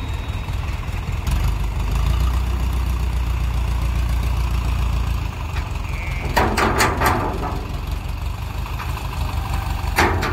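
Heavy diesel engines of the recovery machines running while a hydra crane lifts the overturned dump truck upright; the low engine note grows heavier about a second in and stays so for about four seconds. A few short, loud noises come about six seconds in and again near the end.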